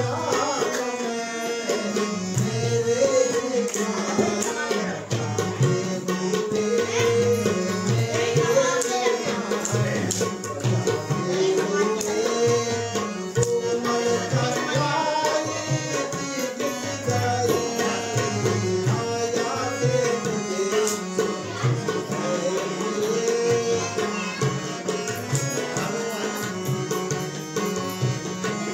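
Tabla and harmonium playing a steady rhythmic accompaniment while a voice sings the melody over them.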